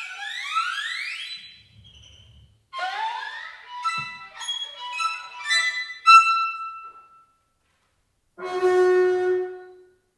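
Chamber ensemble of flute, clarinet, violin, double bass, piano and percussion playing contemporary music: sliding glissando tones at first, a faint low rumble, then a scatter of short high notes with sharp accents. After a pause of about a second, one held note sounds near the end.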